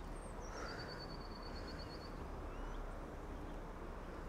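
Small songbird singing a brief high trill of quick repeated notes, about eight a second, with a few short chirps from other birds later on, over a steady low outdoor rumble.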